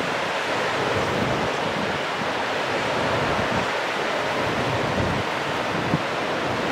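Steady rushing noise with a gusty low rumble of wind on the microphone.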